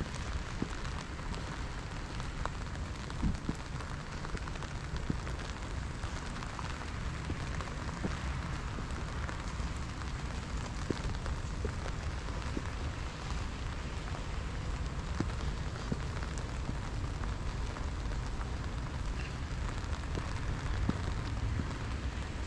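Steady rain falling on wet paving and grass, with scattered drop ticks and a low rumble underneath.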